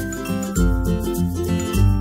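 Background music: an instrumental tune with a bass line and a steady beat.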